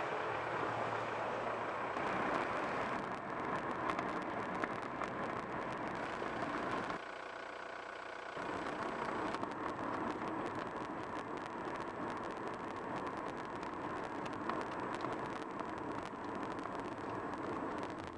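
A car driving along a road: steady tyre and engine noise with many small clicks, dipping briefly quieter about seven seconds in.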